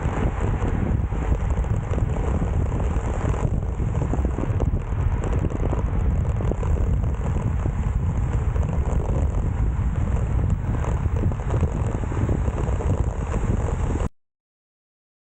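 Wind rushing over an action camera's microphone, mixed with road and tyre noise, as a road bike is ridden at race speed. The sound cuts off abruptly to silence near the end.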